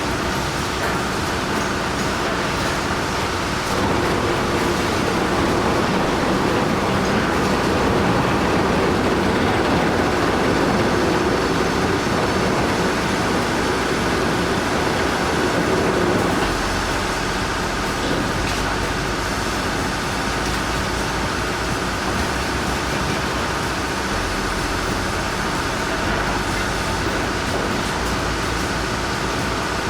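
Heavy machinery running: a steady, dense engine and mechanical noise. Its tone changes about sixteen seconds in.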